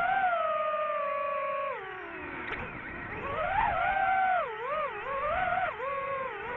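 DJI FPV drone's motors and propellers whining, their pitch gliding down as the throttle is cut about two seconds in. The pitch then climbs again and wavers up and down several times with throttle changes.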